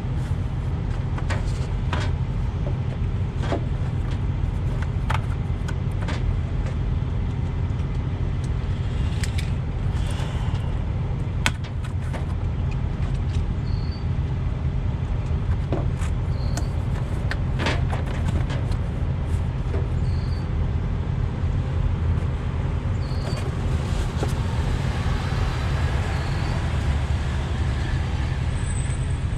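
Steady low rumble of idling diesel trucks, with scattered clicks and knocks of a radiator being handled and taken out of its cardboard box.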